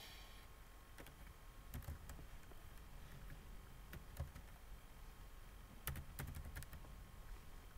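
Computer keyboard keys being typed, faint, in sparse irregular keystrokes with pauses between them.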